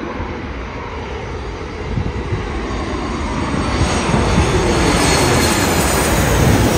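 Boeing 737 MAX 8 jet airliner with CFM LEAP-1B engines on final approach, passing low overhead. Its steady jet roar builds to its loudest near the end as the plane goes over, with a faint tone sliding down in pitch during the first few seconds.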